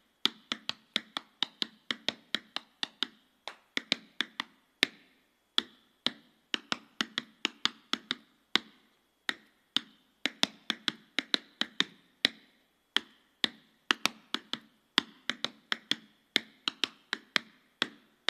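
Metal taps on tap shoes striking a portable tap board in a solo, unaccompanied tap-dance routine. Quick rhythmic clicks come in phrases broken by short pauses.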